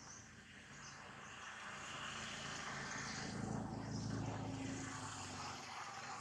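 Low engine drone passing by, growing to its loudest about four seconds in and then fading.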